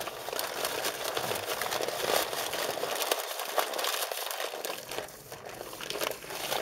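Paper sandwich wrappers crinkling and rustling as they are handled, a steady run of many small crackles.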